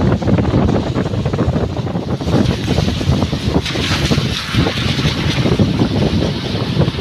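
Wind rushing and buffeting over the microphone of a moving car, mixed with the car's road noise. It runs loud and unbroken, with a brighter hiss coming up about two and a half seconds in.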